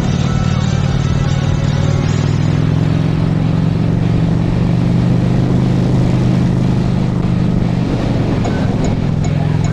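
Honda Shadow 750's V-twin engine running steadily as the motorcycle cruises, its note shifting briefly about eight seconds in.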